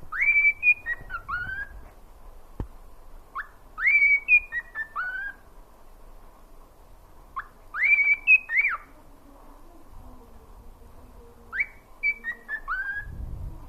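Cockatiel whistling a short learned tune, a phrase of quick rising and falling whistled notes repeated four times with pauses in between.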